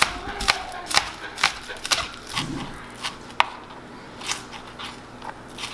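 Chef's knife slicing green onions on a plastic cutting board: sharp knocks of the blade against the board, about two a second, spacing out in the second half.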